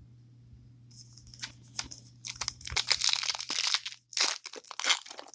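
Foil trading-card pack wrapper being torn open and crinkled, a crackling rustle that starts about a second in and grows louder, with a brief pause near the end.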